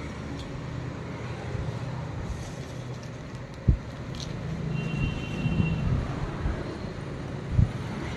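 Steady low rumble of street traffic, with two short thumps as shirts are laid down on the glass counter, the first a little before halfway and the second near the end.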